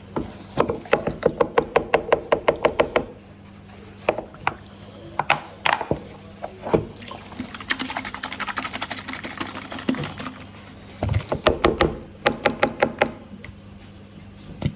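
Gold pan of wet gravel concentrate being shaken briskly, water and stones sloshing and rattling in quick rhythmic strokes, about eight a second, in two spells: near the start and again around eleven seconds in. Between them the water swirls and washes round the pan.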